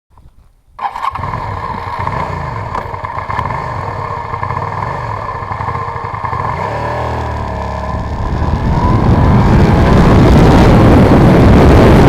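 Suzuki SV650's V-twin engine running, coming in suddenly about a second in, its pitch wavering up and down, then getting much louder from about eight seconds in. It runs again after a leaking vacuum fuel-valve membrane and insect nests in the carburettor vent tubes kept it from starting.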